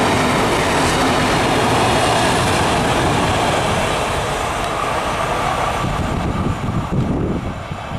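Container freight train's wagons rolling past on the rails, a loud steady rush of wheel noise that fades about halfway through as the last wagon goes by and the train draws away.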